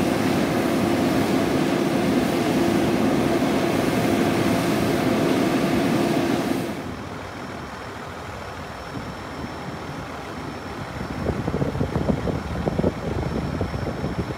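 Concrete mixer truck's engine running steadily, close and loud, while it discharges concrete down its chute. About seven seconds in it drops abruptly to a quieter, uneven rumble of the truck heard from farther off.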